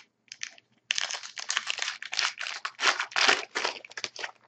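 Foil trading-card pack wrapper crinkling and being torn open by hand: a few light crackles, then about a second in a dense run of crinkling that lasts until near the end.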